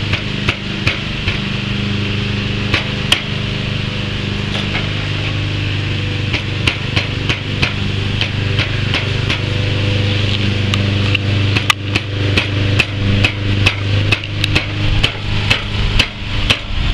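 Rubber mallet striking a block of wood held against a BMX mid bottom bracket bearing cup, driving the cup into the frame's bottom bracket shell: a steady run of knocks, about two or three a second, coming faster in the last few seconds.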